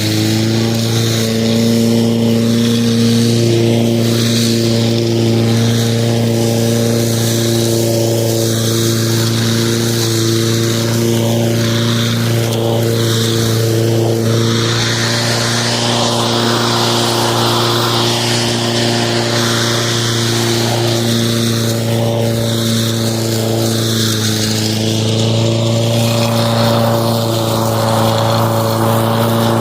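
Lawn mower running at a steady speed with a constant hum that holds one pitch, with a hissing noise above it that swells and fades.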